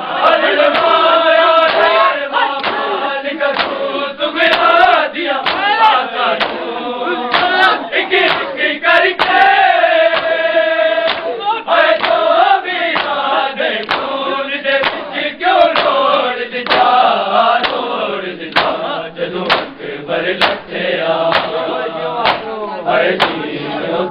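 Men's voices chanting a Punjabi noha in chorus, with sharp strikes that keep time, typical of matam (chest-beating).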